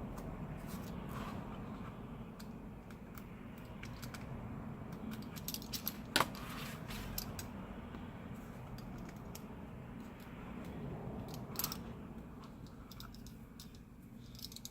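Scattered small clicks and ticks from hands working with tools and adhesive strips on a phone frame, over a steady low hum. The clearest clicks come about six seconds in and again near twelve seconds.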